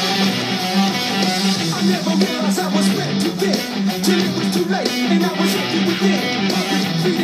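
Electric guitar played through a small Orange combo amp, picking a rhythmic riff along with the song's recording. A steady pulse of low notes repeats throughout.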